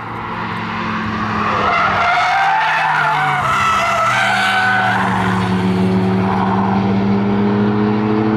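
Mk2 Volkswagen Golf cornering on the limit, its tyres squealing for about three seconds from about two seconds in. From about five seconds in comes an engine under load with slowly rising revs as the car accelerates out of the corner.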